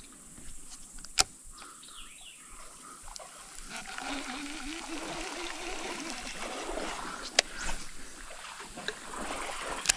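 Creek water trickling and splashing, swelling for a few seconds in the middle, with a few sharp clicks.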